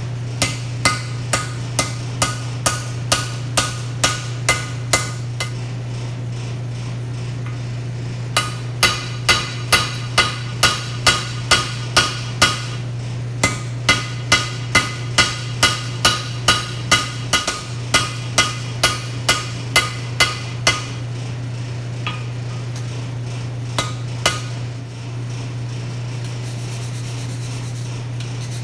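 Hand hammer striking a glowing 5160 steel knife blade on an anvil, about two blows a second in three runs with short pauses and two last blows near the end, each blow ringing. The blows spread the steel out toward the edge to give the blade its belly. A steady low hum from the coal forge's blower runs underneath.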